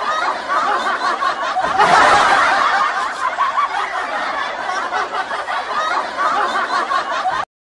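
People laughing and snickering, swelling louder about two seconds in, then cutting off abruptly near the end.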